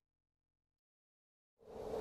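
Dead silence for about a second and a half, then a steady rushing ambient noise fades in quickly near the end.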